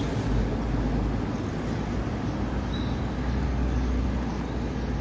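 Steady outdoor street noise with a low rumble, and a brief high chirp a little past the middle.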